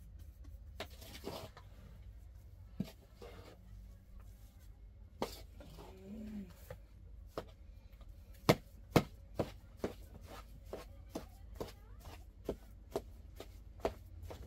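A metal spoon clinking against a steel bowl as chopped greens are mixed, scattered at first, then a steady run of sharp clicks about two a second through the second half.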